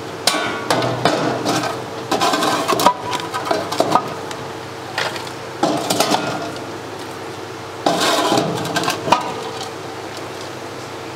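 Popped popcorn being scooped from a popcorn machine's cabinet and poured into a glass: rustling and scraping with light clicks and knocks, in about four bursts a few seconds apart.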